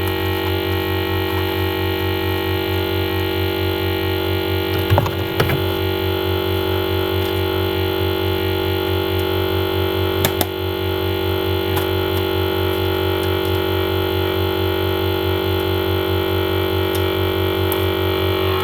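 A steady electrical buzzing hum with a fast low pulse, unchanging throughout, with a few short clicks and rattles about five seconds in and again about ten seconds in.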